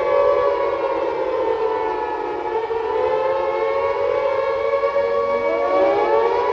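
Civil defense warning siren wailing in several overlapping tones. Its pitch sags slowly, and a tone winds back up about five seconds in.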